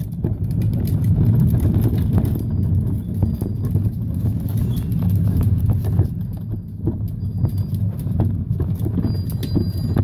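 Hard plastic wheels of a Little Tikes ride-on toy car rolling over concrete: a steady rumble with irregular clicks and knocks.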